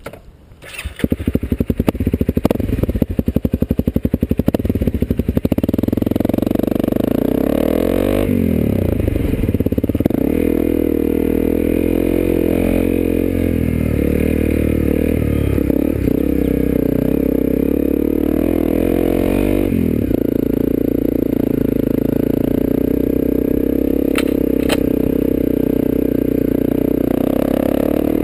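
Honda CRF250L single-cylinder four-stroke dirt bike engine with an FMF aftermarket exhaust, running under way. It chugs in separate pulses at low revs for the first few seconds, then pulls steadily, with the revs rising and falling through gear changes.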